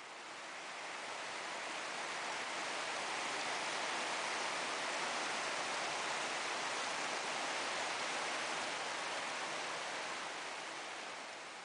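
Heavy rain and rushing floodwater: an even, steady hiss that fades in over the first couple of seconds and fades out near the end.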